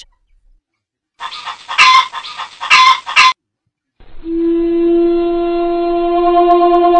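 A couple of seconds of loud, harsh, squawk-like animal calls, then from about four seconds in one long, steady horn-like note held without changing pitch, a comic sound effect.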